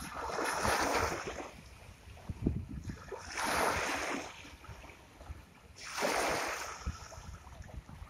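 Sea waves washing onto a shore: three surges of surf, each swelling and fading over about a second, roughly every three seconds, with a low wind rumble on the microphone underneath.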